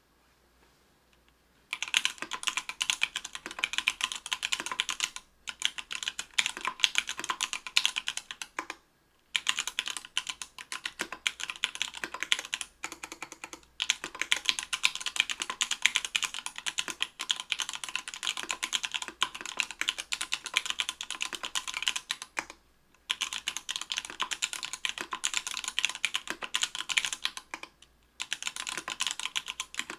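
Rapid, continuous typing on a mechanical keyboard with stock, unlubed Everglide Sky Blue 55 g linear switches, an aluminium plate and GMK keycaps. It starts about two seconds in and stops briefly a few times.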